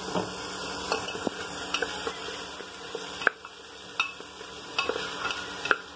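Wooden spatula stirring potatoes, peas and spices in hot oil in a pressure cooker pot: scraping and knocking against the metal over a steady sizzle, with the loudest knock about three seconds in.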